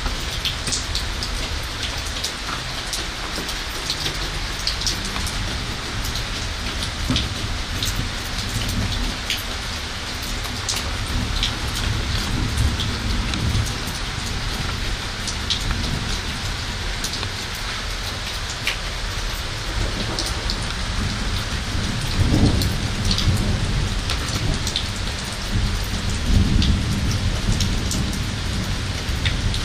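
Steady heavy rain of a summer thunderstorm falling on hard surfaces, with many close drops pattering sharply. Low rolls of thunder rumble through it several times, the loudest a little past two-thirds of the way through and another near the end.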